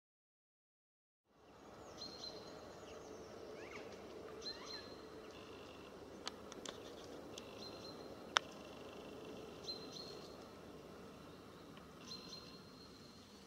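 After about a second of silence, faint forest ambience: small birds give short high calls every couple of seconds over a low steady hiss, with a few sharp taps, the loudest about eight seconds in.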